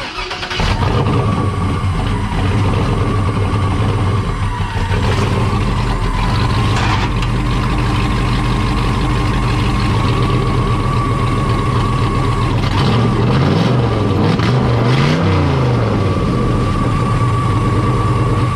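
LS V8 engine in a VW Beetle running loudly at low revs, blipped up and back down twice near the end, with a steady whine above the engine note.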